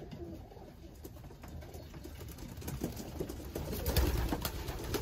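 Homing pigeons cooing in a wooden loft, with a louder low rumble and rustle about four seconds in.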